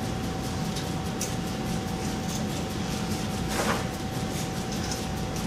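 Engine hoist straining to lift a Toyota Corolla's engine on its chain: a steady mechanical hum with faint, rapid ticking.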